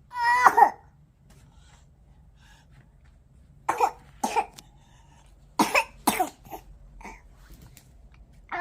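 A young child coughing with a chest cold: a high, voiced cough right at the start, then two pairs of short, sharp coughs about four and six seconds in, and another voiced cough at the very end.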